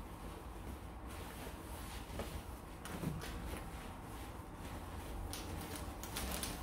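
A curtain being handled and hung: fabric rustling with scattered light clicks and knocks, which come thicker near the end.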